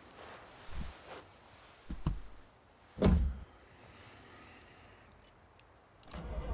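A man settling into a car's driver's seat with a couple of dull knocks, then the car door shut with a solid thud about three seconds in. A few light clicks follow, and near the end the car's engine starts and runs steadily.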